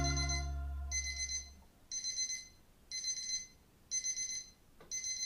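The last chord of a song fades away. Then an electronic alarm beeps in short bursts of rapid pulses, about once a second.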